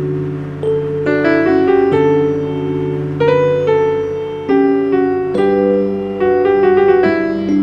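Background keyboard music: a melody of stepping notes over held chords and a sustained bass note.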